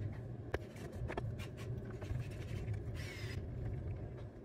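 Scattered small clicks and a short scrape about three seconds in, from a hand fitting a mounting bolt to a freezer ice maker's bracket, over a steady low hum.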